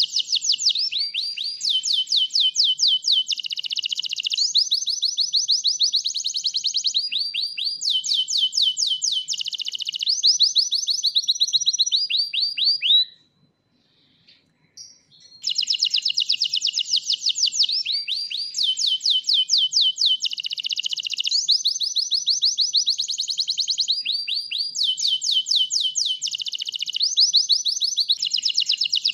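White domestic canary singing a long song of rapid trills and rolls of repeated notes, breaking off for about two seconds near the middle before carrying on.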